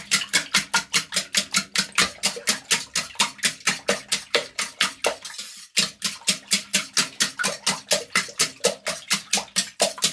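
Eggs and milk being whisked by hand in a bowl: rapid, even strokes of the utensil knocking against the bowl, about four or five a second, with a short pause a little past halfway.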